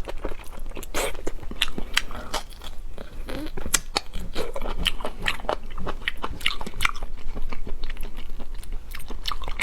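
Close-miked chewing and biting on sea snail (conch) meat, with many irregular crunchy, wet clicks.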